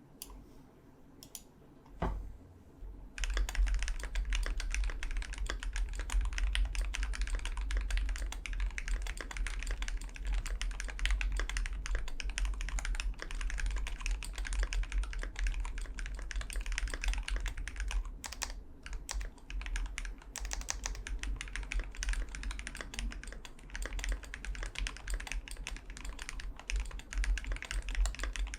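Continuous fast typing on a KBDfans D65 gasket-mounted 65% keyboard with Krytox 205g0-lubed Gateron Black Ink linear switches on a brass plate, the keystrokes running together in a dense clatter. A single knock comes about two seconds in, and the typing starts about a second later.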